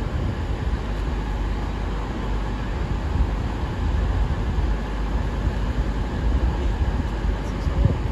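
CrossCountry Voyager diesel-electric multiple unit pulling out of the station, its underfloor diesel engines running with a steady low, even noise.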